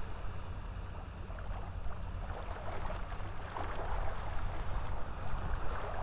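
Outdoor ambience on a wet sand flat: a low wind rumble on the microphone, with a dense, fine crackling that grows louder after about two seconds.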